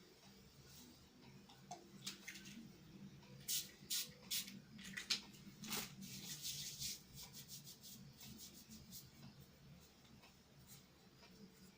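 Faint rustling and a series of short clicks, like objects being handled, clustered in the middle, over a low steady hum.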